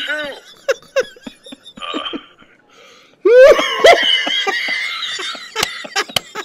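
People laughing in short, repeated bursts, with a longer, high stretch of laughter about three seconds in.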